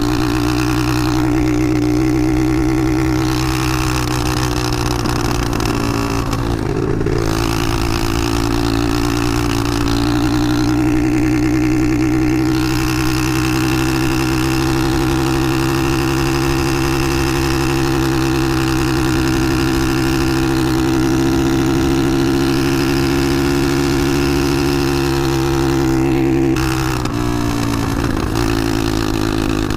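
Small Harley-Davidson motorcycle engine running at a steady, high throttle while riding at road speed, with wind rushing over the handlebar microphone. The engine note falls off and picks up again briefly twice, about seven seconds in and near the end.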